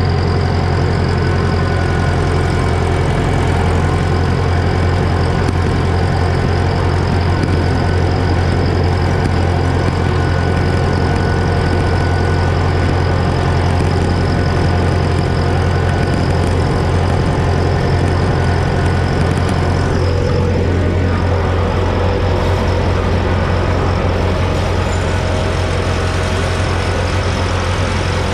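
Fendt tractor engine running steadily under load while pulling a side-mounted mower through tall hay grass.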